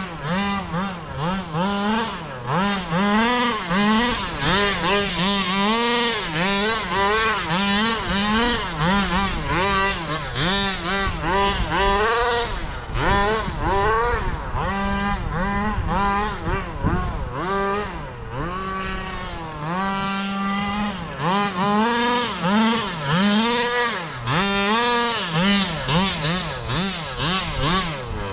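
Two-stroke petrol engine of a 1/5 scale Baja RC buggy revving up and down over and over as it is driven, dropping back to a steady idle briefly near the start and again about two-thirds of the way through.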